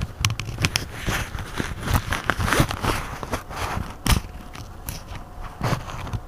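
Mercedes-Benz Citaro city bus standing at a stop, a steady low rumble under many irregular crackling clicks and knocks.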